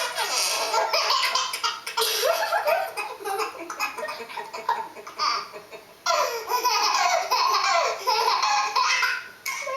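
A baby laughing hard in long belly laughs, in two bouts with a quieter pause of about two seconds in the middle.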